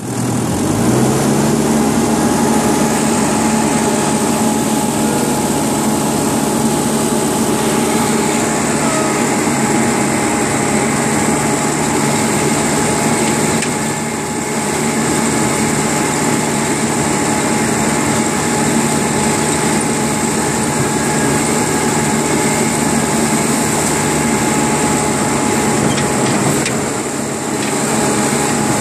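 Diesel engine of a tracked heavy machine running steadily while it travels, heard from on board. The engine note rises in the first second, then holds, with a steady thin whine over it.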